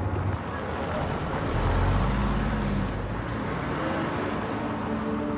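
Police car driving: steady engine and road noise. Background music with held tones comes in near the end.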